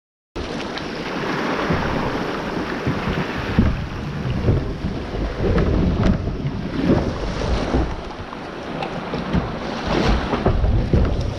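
Wind gusting on the microphone, over choppy water lapping and splashing against a plastic kayak's hull as the kayak is pushed out through the shallows. It starts abruptly a moment in.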